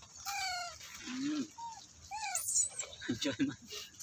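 A series of short animal calls, each a brief arched or falling squeak, with a quick high chirp about halfway through and a few low grunt-like calls near the end.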